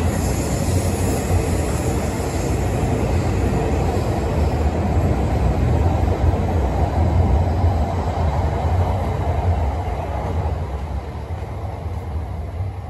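E5-series Shinkansen bullet train running past the platform at close range, a loud, steady rushing rumble. It tapers off over the last few seconds as the end of the train goes by.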